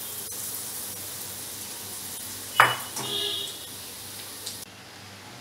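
Batter-coated corn kernels sizzling as they deep-fry in hot oil in an iron kadhai. A loud metal clank with a brief ring comes about two and a half seconds in, and the sizzling cuts off near the end.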